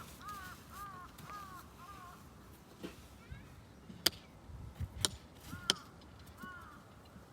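A crow cawing repeatedly: a quick run of about six caws, then a few more later. Three sharp knocks, louder than the caws, come between about four and six seconds in.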